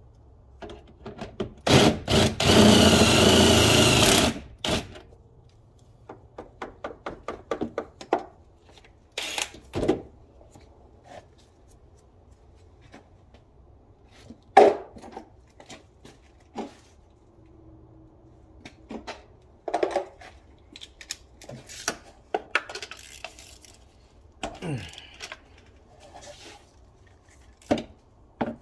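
A cordless drill runs for about two and a half seconds, spinning out fasteners during a spark plug change on a 3.5 V6. Then comes a quick run of ratchet-like clicks, with scattered clinks and knocks of hand tools on metal.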